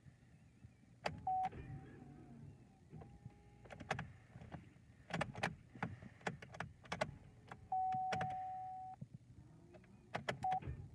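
Chevrolet Cruze that won't start: a string of sharp clicks and knocks with short single-pitch electronic beeps from the car, one longer beep about 8 seconds in, and no engine running.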